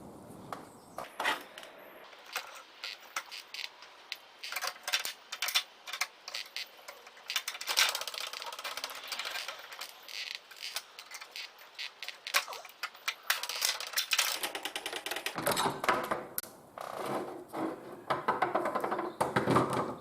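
Rapid clicking and rattling of tools and metal parts being handled inside a dismantled microwave oven. About fifteen seconds in, a fuller, lower clatter joins in.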